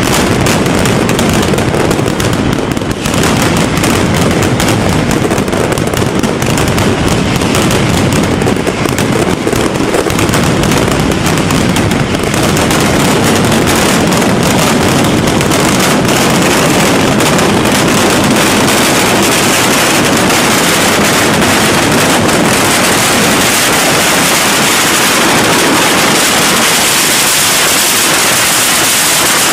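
Mascletà: a barrage of ground-level firecrackers going off in rapid succession, the separate bangs merging into one unbroken barrage about twelve seconds in.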